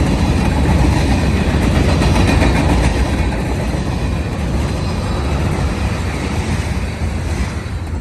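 CSX manifest freight train's cars rolling past, a loud steady rumble and rattle of wheels on rail that eases slightly near the end.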